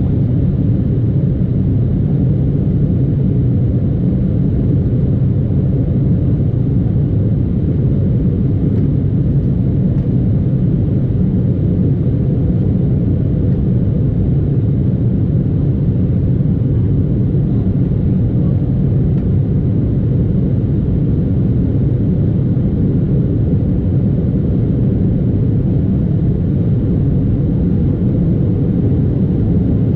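Steady low rumble of an Embraer 175 heard from inside the passenger cabin, its GE CF34 turbofan engines and the airflow over the fuselage droning evenly as the airliner climbs out after takeoff.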